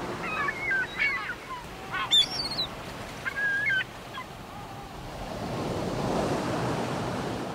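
Gulls calling in a string of short wavering cries over the first few seconds, one higher and louder than the rest, over the wash of sea waves that swells up about five seconds in.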